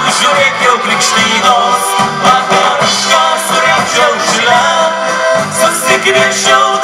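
Live folk band music: accordions playing a lively tune over a steady drum beat with cymbal hits.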